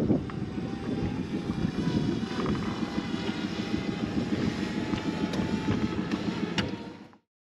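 Quadcopter drone flying low with a slightly wavering whine, over a steady low rumble of wind and boat noise; the sound cuts off suddenly about seven seconds in.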